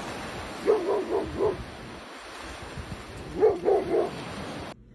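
A dog barking, two quick runs of three barks about two and a half seconds apart, over a steady rushing noise.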